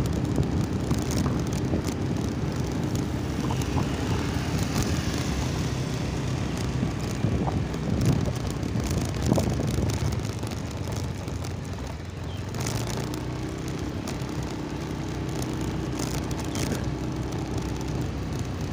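Motorcycle engine running steadily while riding along a road, with road and wind noise.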